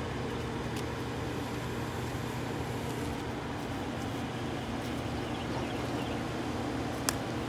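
An engine running steadily nearby, a low, even hum that holds one pitch throughout, with a single sharp click near the end.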